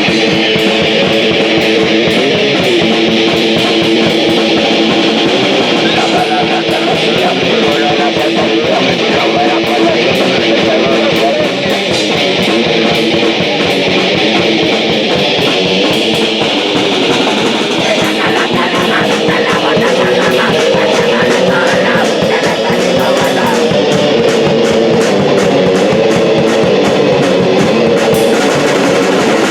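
Punk rock music: electric guitars and a drum kit playing steadily and loud, the texture changing about two-thirds of the way through.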